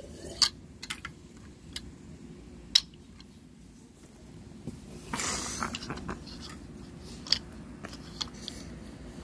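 Plastic Lego pieces clicking and clattering as a toy truck is handled, with a brief scraping rustle about five seconds in.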